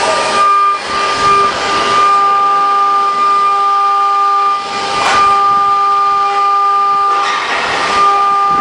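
CNC machine milling aluminium: a steady high whine from the spindle and cutter, with several tones held together, broken by short hissing rushes about a second in, around halfway and near the end.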